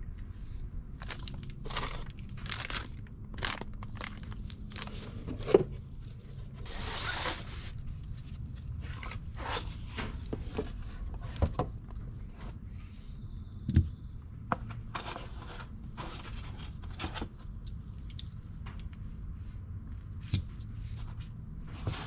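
Plastic bags and cardboard boxes crinkling and rustling as new pistons and connecting rods are unpacked by hand, with scattered clicks and a few sharper knocks, the loudest about five seconds in and again about fourteen seconds in.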